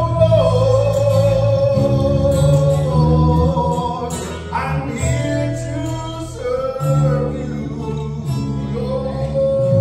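Samoan church choir of men and women singing a hymn together, accompanied by acoustic guitar, with long held notes.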